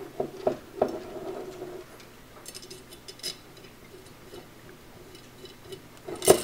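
Light metallic clicks and taps of steel spokes and spoke nipples against a BMX rim as a nipple is threaded onto a spoke end by hand while lacing the wheel. A few scattered clicks come in the first second, a small cluster around the middle, and more near the end.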